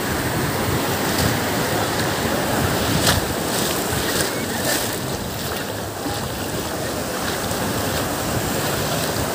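Sea surf breaking and washing in around the shallows: a steady, rushing wash of waves with a few brief sharper splashes.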